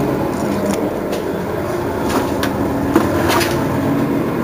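Mercedes-Benz Citaro city bus's diesel engine idling steadily while the bus stands at a stop. A few short sharp ticks and hisses come through it.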